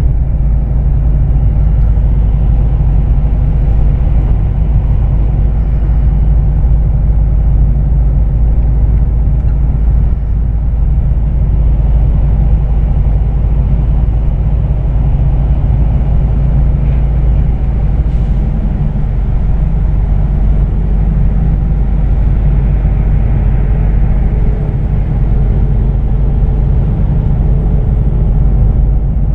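Heavy truck's diesel engine and tyres heard from inside the cab while driving on a wet highway: a loud, steady low rumble and drone with no change through the stretch.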